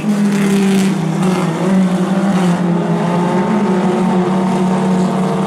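Several mini stock race cars' four-cylinder engines running hard at racing speed, their overlapping steady notes shifting a little as the cars pass through the turn.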